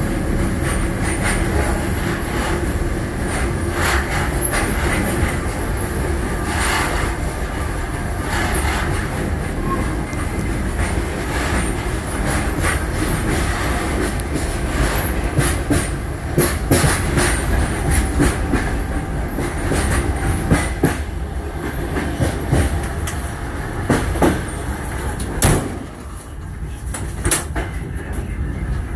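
Passenger train running on rails, a steady rumble with the wheels clacking over rail joints. Sharper knocks come more often in the second half.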